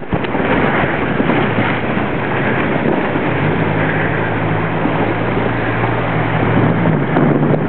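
Steady rush of wind and water noise on the microphone. A motorboat engine's steady hum comes in about three seconds in and drops away near the end.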